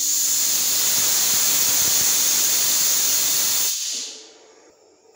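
Vertical fog machine blasting a jet of fog straight up, a loud steady hiss. The hiss stops a little before four seconds in and fades away over about half a second.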